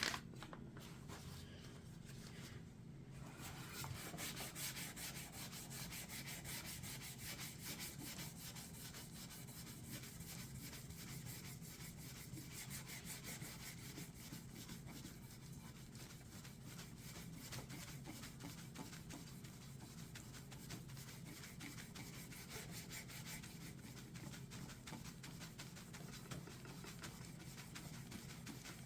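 Rapid rubbing strokes of a polishing cloth working metal polish into an old metal lamp, starting about three seconds in, over a low steady hum.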